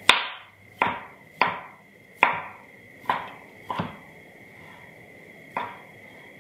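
Kitchen knife chopping cauliflower florets on a cutting board: about eight sharp, unevenly spaced chops, the last one after a pause of nearly two seconds.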